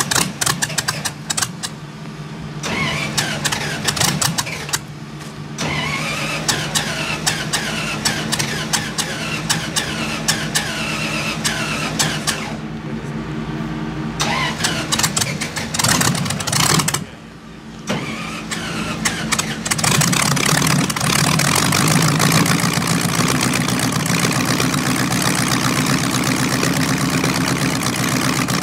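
Streamliner C-16's inline sixteen-cylinder engine, built from two Buick straight-eights joined end to end, being started: it cranks and fires raggedly with two short pauses, then catches about twenty seconds in and runs steadily.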